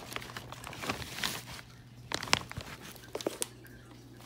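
A plastic bag full of small rockets on wooden sticks is handled and lifted, giving plastic rustling and the sticks clattering against each other, with several sharp clicks. The loudest click comes about two seconds in.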